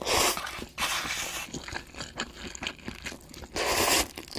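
Instant noodles being slurped from a cup, three long slurps with soft wet chewing clicks between them.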